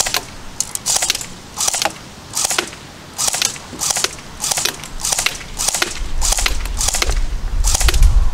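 Colt M4A1 electric airsoft rifle firing in rapid semi-auto, about one to two shots a second, some as quick doubles, with the BBs smacking into a target box. A low rumble comes in near the end.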